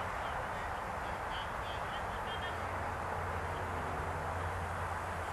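Steady outdoor background noise with a low hum. A few faint, short bird calls come in the middle.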